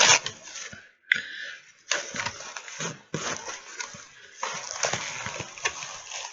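Close-up sounds of someone eating and handling food: an irregular run of short rustling, smacking and clicking noises.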